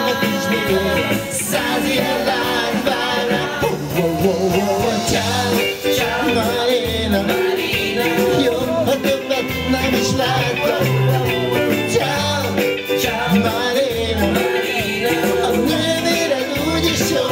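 Live band playing an upbeat pop-rock song with a lead singer, over electric guitar, bass, drum kit and percussion.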